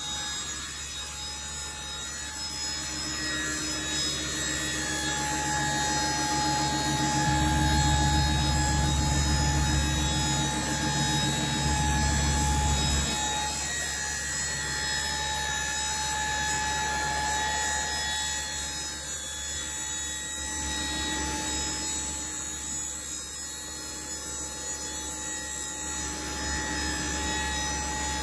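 Electric-hydraulic pump of a Pierce dump hoist running as it raises the steel dump bed, a steady motor hum that grows louder for several seconds partway through, then settles.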